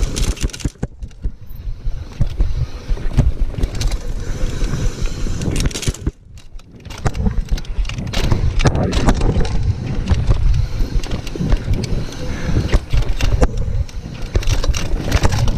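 Mountain bike riding fast down a dirt trail: a heavy rumble of tyres and wind on the camera microphone, with constant clattering from the bike over bumps. It briefly goes quieter about a second in and again around six seconds in.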